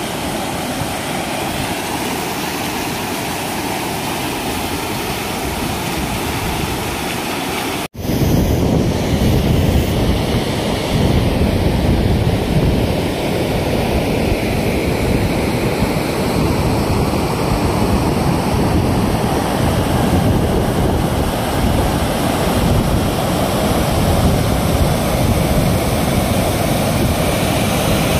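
Steady rush of floodwater pouring over the spillway of an overflowing dam, mixed with wind buffeting the microphone. About eight seconds in the sound cuts briefly, then comes back louder and deeper.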